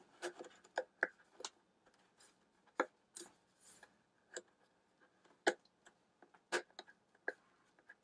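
Light plastic clicks and taps, a dozen or so at irregular intervals, as the mesh filter cover is fitted onto the back of a plastic space heater and pressed into place.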